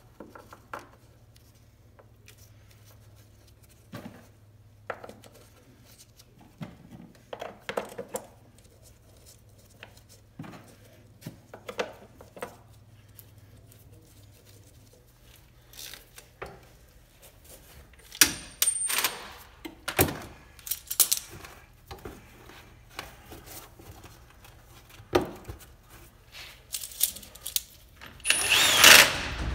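Scattered clicks, knocks and rattles of parts and hand tools being fitted in a car's engine bay, over a low steady hum in the first half. Near the end comes a loud burst of cordless impact wrench noise.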